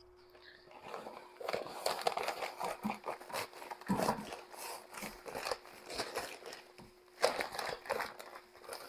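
Bag of grout powder crinkling and rustling as it is tipped and shaken, pouring the powder into a plastic bucket of bonding agent: irregular crackles, with the sharpest one near the end.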